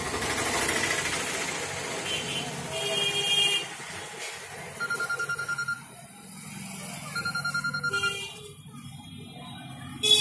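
A rapidly chopped electronic ringing tone, like a telephone ring, sounds twice: about five seconds in and again about seven seconds in. Background chatter and noise run underneath.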